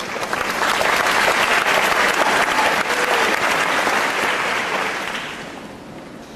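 Audience applauding: the clapping swells in the first second, holds, then dies away about five to six seconds in.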